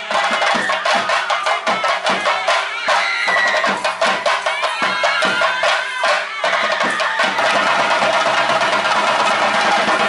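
Chenda drums beaten with sticks in fast, dense strokes to accompany a theyyam dance. About six and a half seconds in, the strokes run together into a continuous roll.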